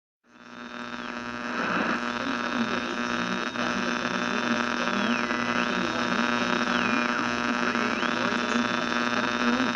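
Electronic drone with a steady buzzing hum under a high tone that slides down and back up several times. It fades in over the first couple of seconds.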